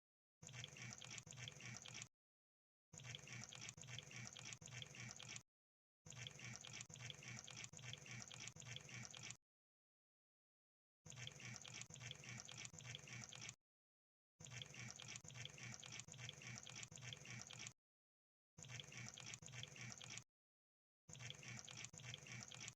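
Crab sound effect: rapid clicking and crackling, in about seven bursts of one and a half to three and a half seconds each, broken by dead silence.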